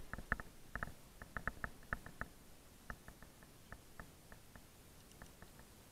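Faint, irregular clicks and ticks of climbing rope and gear being handled with gloved hands, close together for about the first two seconds and sparser after.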